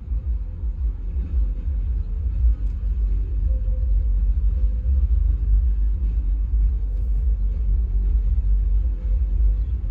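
Low, steady rumble of a car with its engine running, with a faint steady hum above it.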